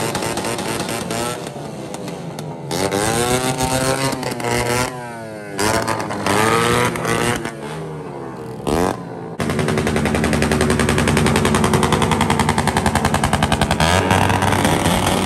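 Motorcycle engine revved hard in repeated short blips, its pitch rising and falling with brief gaps. About nine seconds in, the engine is held at high revs and the exhaust gives a long, fast string of backfire pops in a dense crackle.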